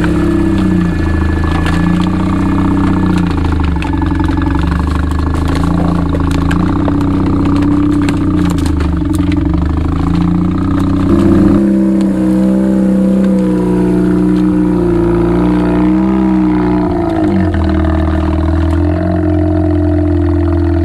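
Fuel-injected Mazda 13B rotary engine in a Willys Jeep, lugged down to very low revs under load as the Jeep crawls in low range, running without stalling. The engine note wavers and shifts pitch about halfway through and again near the end, with split firewood clattering under the tyres in the first half.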